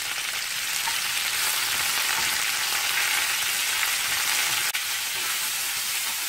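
Fresh mint leaves sizzling in hot sesame oil as they are stirred and sautéed with a spatula: a steady frying hiss. It dips briefly a little after four and a half seconds in.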